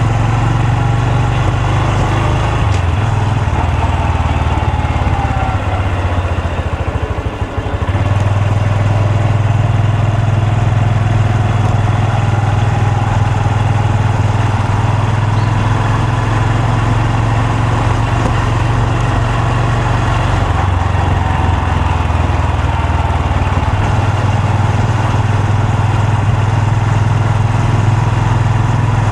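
Honda Super Cub C125's air-cooled single-cylinder four-stroke engine and exhaust running steadily. About six seconds in, the engine note drops and falters for a couple of seconds, then picks back up to the same steady running.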